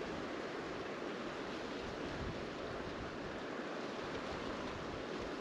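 Steady rushing noise of a shallow creek's current, mixed with wind buffeting the microphone.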